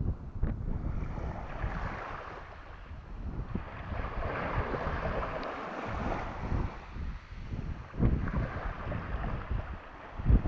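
Wind buffeting the microphone over the rush of sea water, which swells and fades twice.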